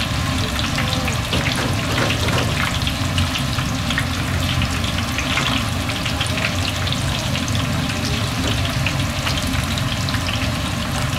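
Breaded pork cutlets deep-frying in hot oil: a continuous sizzle thick with crackles and pops, over a steady low hum.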